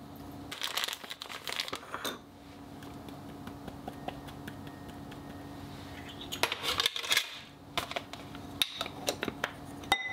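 Three short bursts of crinkling and light clinking as matcha and sugar are handled: a foil matcha packet rustling and a measuring spoon against a glass mixing bowl. A faint steady hum runs underneath.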